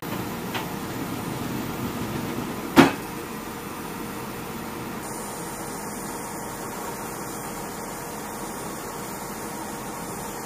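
Steady hum of cargo-loading machinery, with a faint click early and one loud, sharp bang about three seconds in.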